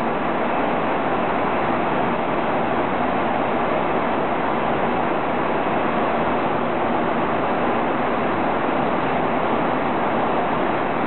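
Steady cabin noise of a jet airliner in cruise: an even rush of engine and airflow noise that holds level throughout.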